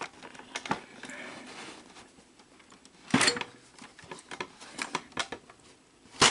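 Small plastic clicks and ticks from a VCR's tape-loading mechanism as its cam gear is turned by hand to unload it. Two louder knocks come about three seconds in and just before the end.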